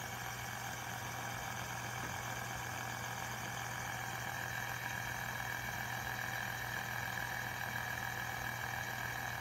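A fidget spinner with steel balls set in its arms spinning freely on a flat surface, giving a steady, jingly whir.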